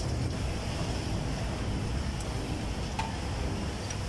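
Steady low rumbling background noise, with a single light click about three seconds in.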